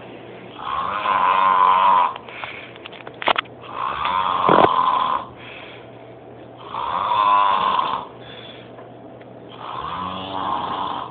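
A sleeping man snoring loudly: four long snores about three seconds apart. A few short clicks come just before the second snore.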